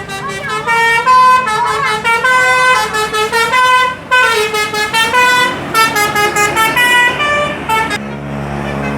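Bus telolet horn, a basuri multi-tone musical horn, playing a tune of short stepped notes with a few warbling ones. It stops about eight seconds in, leaving a low steady hum.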